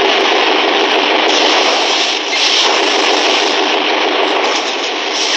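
Loud, steady din of a cavalry battle on an old film soundtrack, a dense unbroken roar with no separate shots or hoofbeats standing out.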